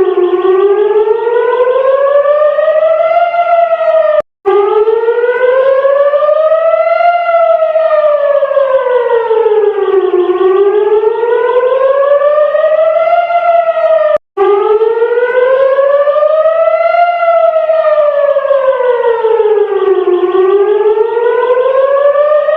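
Israeli civil defense siren wailing, its pitch rising and falling slowly over about three seconds each way: the warning wail for a rocket or air-raid alert. It cuts out for an instant twice.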